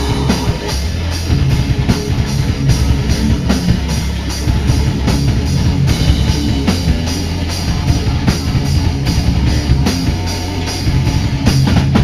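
A metal/hardcore band playing live and loud: distorted electric guitars, bass and drum kit in a steady, driving beat. Everything stops abruptly at the very end.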